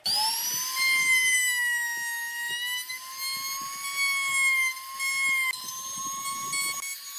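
An electric power tool's motor starts suddenly, its pitch rising briefly as it spins up, then runs with a steady high whine.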